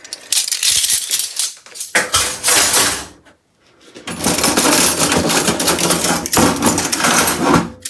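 Metal cutlery clattering and clinking as a handful of knives, spoons and forks is gathered up and jostled in a wire cutlery basket, in two busy stretches with a short pause about three seconds in.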